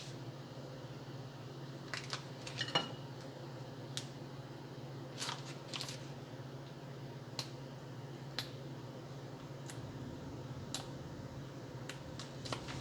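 Kitchen handling sounds while making a sandwich: scattered light clicks, taps and rustles of food packaging and utensils, with one louder clack about three seconds in, over a steady low hum.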